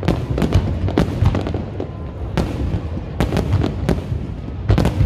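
Aerial firework shells bursting in a dense, irregular run of bangs over a continuous low rumble, with a cluster of loud reports near the end.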